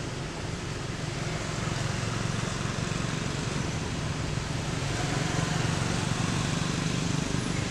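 A motor vehicle engine running nearby: a steady low hum under an even hiss, growing a little louder over the first two seconds and then holding.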